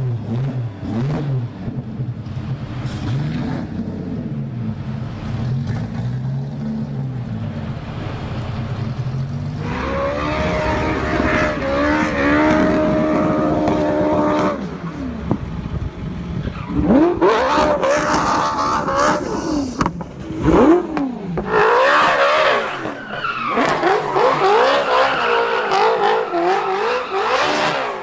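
A custom Cobra-style roadster's engine revving up and down at a low pitch. From about ten seconds in, the Ferrari 458 Italia V8 in a Toyota 86 drift car revs high and falls repeatedly as the car drifts, with tyre squeal.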